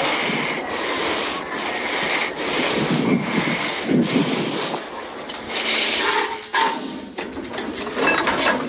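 Steady rushing noise. In the last few seconds come rustles and sharp knocks as the phone is handled and moved.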